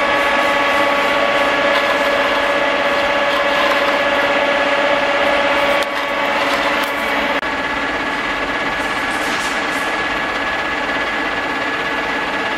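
Huron NU 5 universal milling machine running: a steady motor-and-gearbox whine made of several tones over a mechanical hum, with a brief dip in level partway through.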